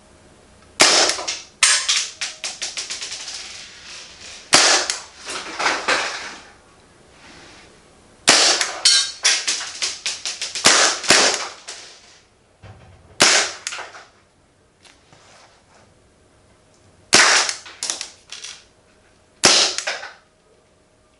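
Marzen Walther PPK airsoft pistol firing repeated shots, singly and in quick strings of several, with pauses between the groups; each shot is a sharp crack followed by a short rattle.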